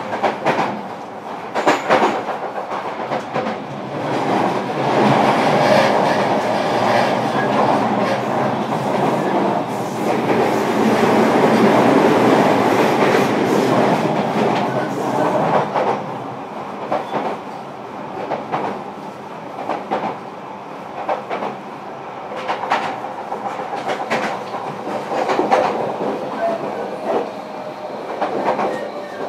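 Running sound inside a JR Kyushu 305 series electric train's motor car on the move. A steady rumble of wheels and running gear, with wheels clicking over rail joints now and then, often in pairs. Loudest through the middle and easing after about sixteen seconds.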